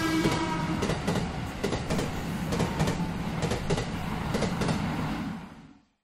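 Bullet train passing: a steady rumble with wheels clicking over rail joints, a short pitched horn-like tone at the start, then fading away shortly before the end.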